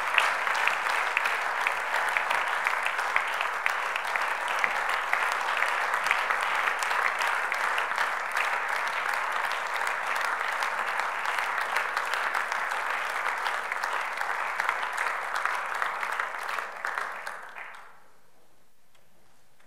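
An audience applauding, a steady crackle of many hands clapping that dies away near the end.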